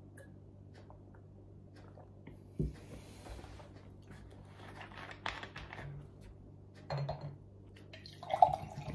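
A drinking glass set down on a table with a knock, then a plastic water bottle rustling and crinkling as it is handled and opened. Near the end, water poured from the bottle into the glass, splashing loudly.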